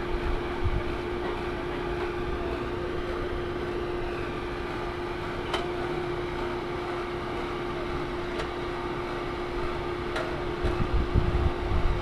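A machine's steady hum holding one constant tone, with a few faint ticks and some low rumbling near the end.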